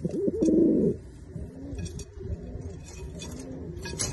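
Domestic pigeons cooing, loudest in the first second, then softer, intermittent coos. A single sharp click near the end.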